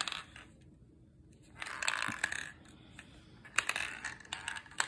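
A 9 mm steel ball bearing rolling and clattering through a 3D-printed plastic maze inside a plastic water bottle as the bottle is tilted. It comes in two spells of rolling with sharp clicks off the maze walls, about two seconds in and again near the end.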